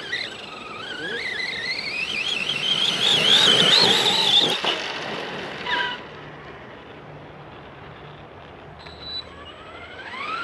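Arrma Big Rock RC monster truck's electric motor whining, its pitch climbing and wavering with the throttle for about five seconds before cutting off. Near the end it winds up again with a quickly rising whine.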